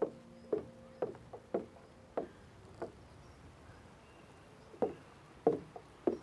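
Footsteps on the plank deck of a wooden footbridge: hollow knocks about two a second. They stop for a couple of seconds midway, then three more steps come near the end.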